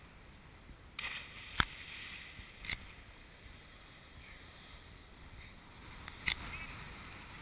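A person plunging feet-first into the sea from a rocky ledge several metres up: a sharp slap of water about a second and a half in, over a soft hiss of wind and surf, with a couple of smaller sharp knocks later.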